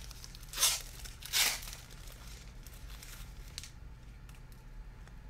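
Foil wrapper of a 2021 Legacy football hobby pack being torn open: two sharp rips about a second apart, followed by fainter crinkling of the wrapper.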